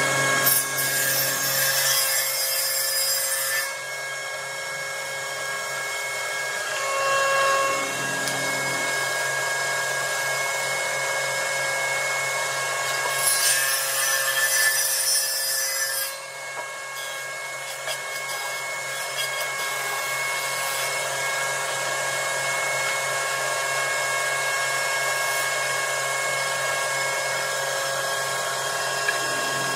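Jointer running with a steady motor hum while a board's edge is shaved on the cutterhead in two passes, one at the start and another about thirteen seconds in, each lasting about three seconds.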